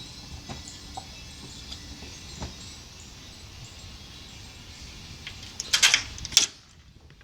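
Gusty wind blowing steadily, then a few loud sharp knocks near the end, after which the wind noise drops away abruptly.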